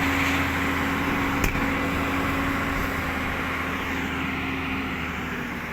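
Excavator engine running steadily under a haze of machine noise, with a single sharp knock about a second and a half in; the sound eases off slightly toward the end.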